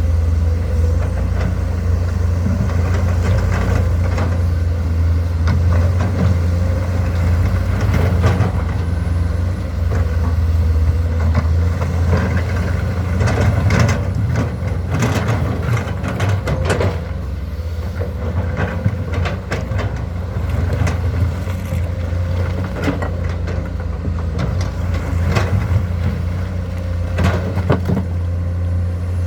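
Heavy diesel engine of a Komatsu excavator running steadily with a deep drone, with scattered knocks and rattles, most of them clustered toward the middle and near the end.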